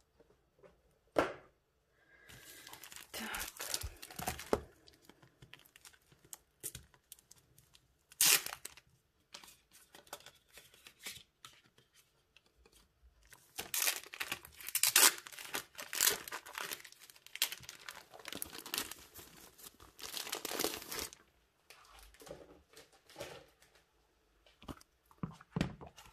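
Clear plastic shrink-wrap being torn open and crinkled by hand, in several spells of rustling with scattered handling clicks between them, the longest and loudest spell in the second half.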